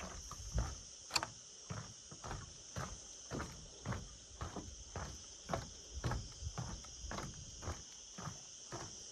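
Footsteps of a person walking at a steady pace, about two steps a second, over a steady high-pitched chorus of insects such as crickets.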